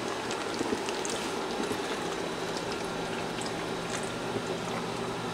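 Steady workshop hiss with a faint low hum, and a few light clicks as plastic packs of fish hooks are handled on a wooden bench.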